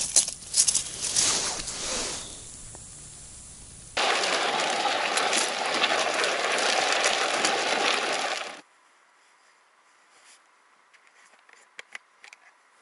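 Plastic sleds dragged over ice, an even scraping hiss that runs for about four and a half seconds and cuts off abruptly. Before it come a few faint clicks and rustles, and after it near silence with scattered faint clicks.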